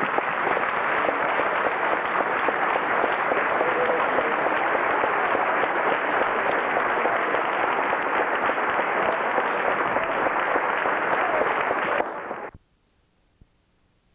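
Audience applauding: dense, steady clapping that cuts off abruptly about twelve seconds in, leaving near silence.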